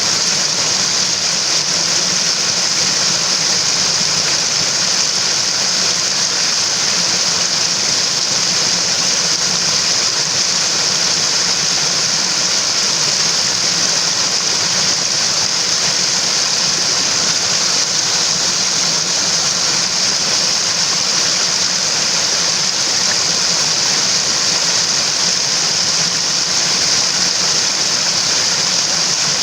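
Mountain stream water rushing steadily, an even, unbroken hiss with no change in level.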